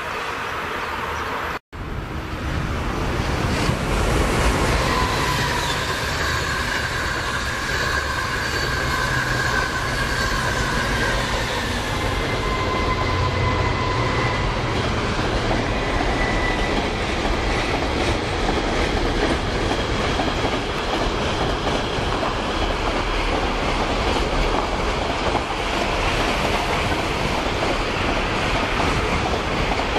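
Container freight train running past on the rails, with a steady rumble and clatter of the wagons. A thin wheel squeal sounds for several seconds in the first half. The sound drops out briefly about two seconds in.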